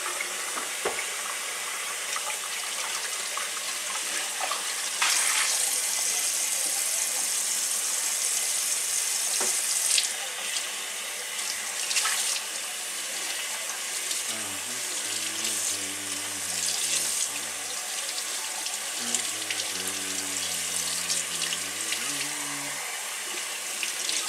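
Kitchen tap running into a sink during hand dishwashing, with dishes clinking and knocking now and then. The water flow gets louder about five seconds in.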